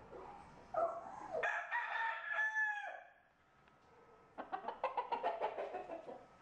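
Caged rooster crowing once, a long call that dips in pitch at its end. About a second and a half later a chicken gives a quick run of clucks.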